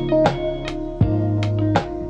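Background music led by plucked guitar notes over held low bass notes, with a new note struck every half second or so.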